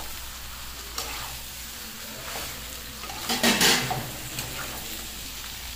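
Chicken and potato pieces sizzling as they fry down in a steel kadai, in the dry-frying stage before water is added. A metal spatula scrapes and turns them against the pan, loudest about three and a half seconds in.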